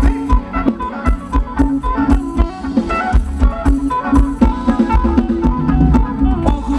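Live band playing upbeat Thai ramwong dance music, instrumental, with a steady drum beat, a heavy bass line and a stepping melody.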